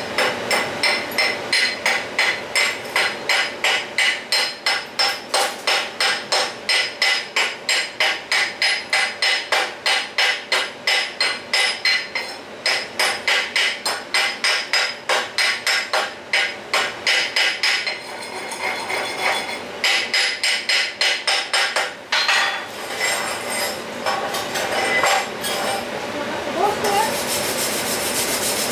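Chipping hammer knocking slag off a stick-welded bead on steel, rapid even blows about three a second. From about two-thirds of the way through, this gives way to scrubbing with a steel wire brush.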